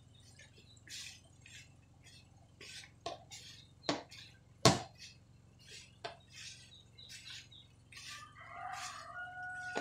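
Hands tossing and squeezing wet chicken pieces in flour in a plastic bowl: irregular scrunching and rustling, with a few knocks against the bowl, the sharpest about halfway through. The flour is being worked into crumbly clumps for a crispy coating. Near the end a rooster crows in the background.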